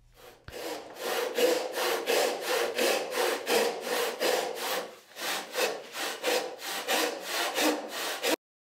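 A shop-made Roubo frame saw resawing a board held upright in a vise, making a quick, even run of back-and-forth sawing strokes, about three to four a second. The sawing cuts off abruptly near the end.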